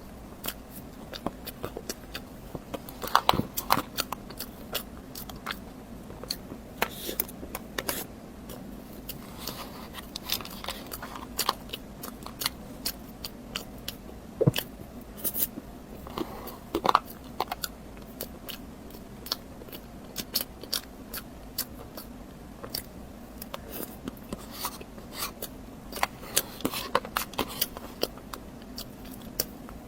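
Close-miked eating: bites and chewing, with irregular crisp clicks and crunches.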